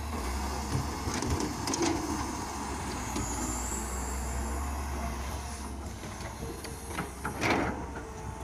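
Kobelco excavator's diesel engine running steadily as the boom swings and the bucket unloads soil, with a faint high hydraulic whine for a second or so midway. Near the end a louder scrape and clatter as the bucket digs into the earth.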